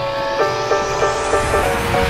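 Electronic background music: a repeating synth riff with a rising noise sweep building up.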